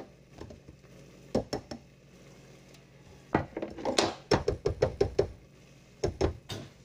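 Kitchen utensils knocking and clattering on the counter: a couple of knocks, then a quick run of about ten sharp knocks, then a few more near the end, over a steady low hum.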